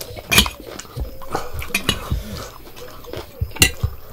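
Metal spoon clinking and scraping against ceramic plates in a scatter of sharp clinks, the loudest about half a second in.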